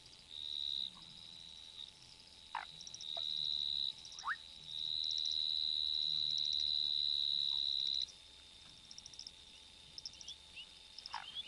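Chorus of frogs calling at night. A high, steady trill starts and stops several times, its longest run lasting about three seconds. Quicker pulsed calls sound above it, with a few short sweeping chirps.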